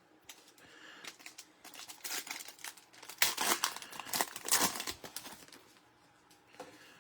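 Trading card pack wrapper crinkling and tearing as it is ripped open and handled, a dense run of crackles that is loudest toward the middle and dies down after about five seconds, with one short crackle near the end.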